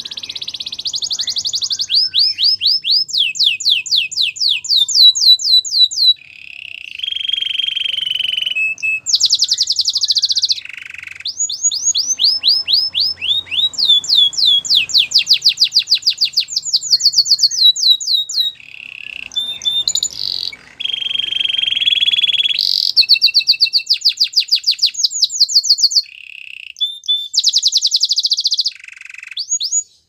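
A Belgian singing canary sings loudly in long phrases of fast trills, each made of many quick repeated rising notes, with a couple of lower held notes between them and short pauses between phrases.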